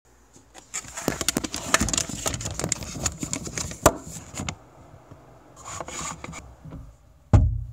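Handling noise from a phone being held and positioned by hand: fingers rubbing and knocking against the phone near its microphone, a run of rustles, scrapes and clicks, then a single low thump near the end.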